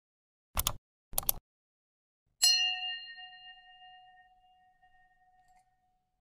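Two short clicks about half a second apart, then a single bright bell ding that rings out and fades over about three seconds: the sound effects of an on-screen like, subscribe and notification-bell animation.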